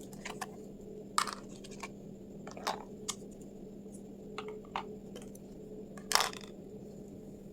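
Small plastic toy kitchen pieces being handled and set down: scattered light clicks and taps, the loudest about six seconds in, over a faint steady hum.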